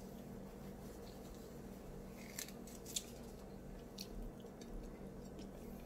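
A person chewing a fried egg roll, faintly, with a few short crunching clicks about a second apart past the middle, over a low steady hum.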